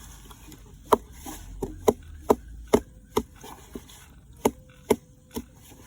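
A series of about ten sharp knocks, roughly two a second, with a brief pause partway through.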